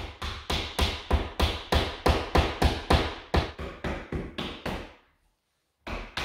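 Rapid, even hammer taps driving wooden shims into the gap between a door jamb and its rough opening, about three or four a second, pausing briefly near the end before starting again.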